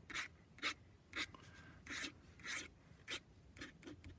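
Flexible steel nib of a Waterman 52 fountain pen scratching across paper in short strokes, about two a second, as it lays down red ink.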